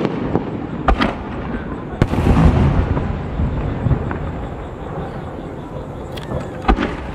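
Aerial firework shells (uchiage hanabi) bursting overhead. There are sharp bangs about a second in, again at two seconds and near the end, and after the two-second bang a long low rumbling boom slowly fades.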